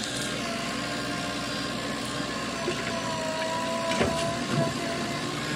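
Diesel engine of a JCB 3DX backhoe loader running steadily under working load, with a thin whine in the middle. A sharp knock comes about four seconds in and a smaller one just after.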